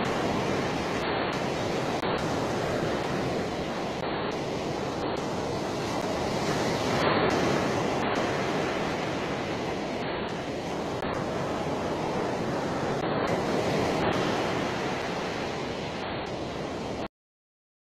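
Steady outdoor rushing of wind and water, typical of surf or wind at a shoreline, swelling slightly twice and cutting off abruptly about a second before the end.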